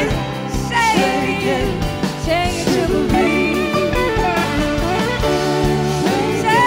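Live blues-rock band playing electric guitars over bass and drums, with a wavering, gliding lead line in the middle of the passage.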